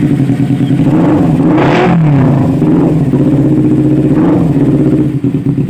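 Kawasaki Ninja 250 FI parallel-twin engine running through an imitation Akrapovic slip-on muffler, with two short throttle blips: a bigger one about a second and a half in and a smaller one around four seconds in, settling back to idle after each.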